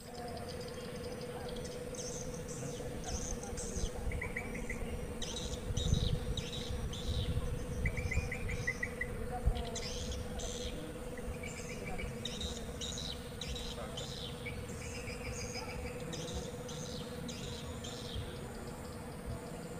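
Swamp ambience of chirping insects and birds: short, rapidly pulsed trills repeat throughout, over a steady hum and a low rumble.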